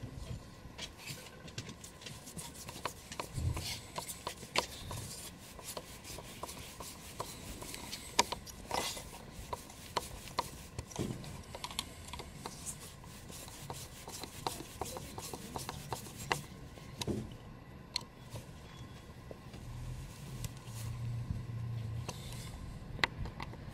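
A screwdriver turning the small screws of a car's mass airflow sensor, with irregular light clicks and scraping of metal on the screw heads and the plastic sensor housing as hands handle the part.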